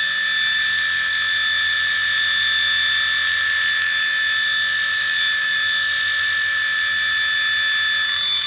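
Minion-figure toy helicopter's small electric motors and twin counter-rotating rotors whirring as it hovers: a steady, high-pitched whine that dips slightly near the end.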